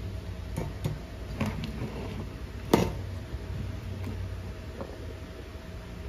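A switching power-supply circuit board with a metal heatsink bracket handled and turned over on a wooden bench: a few light clicks and knocks, the loudest about three seconds in, over a steady low hum.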